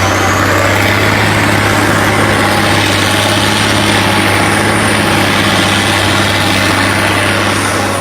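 A heavy engine running steadily at a constant speed, with a strong low hum and a hiss over it. It comes up loud at the start and drops away near the end.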